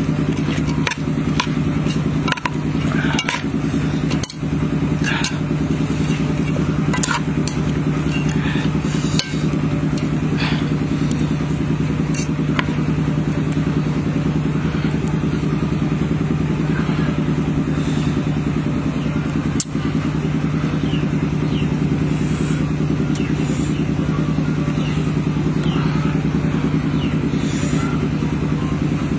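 A steady low motor drone runs throughout, like an engine running nearby. Over it, during roughly the first twelve seconds, come scattered clicks and clatter of food being tossed with utensils in a metal mixing bowl, then only a few faint clicks.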